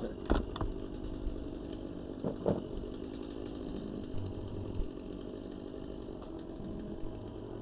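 A small engine running steadily, with a few short knocks in the first couple of seconds.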